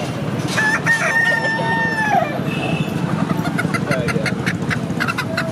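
A rooster crowing once, a long drawn-out call that bends down at the end, over steady background noise. A quick run of short clucks follows in the second half.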